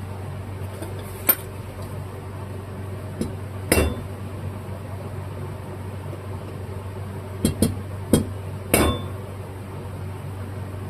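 Metal tools tapping and clinking against the carburetor's metal parts while a part is worked into its bore: about six sharp, irregular clinks, two of them close together near the middle. A steady low hum runs underneath.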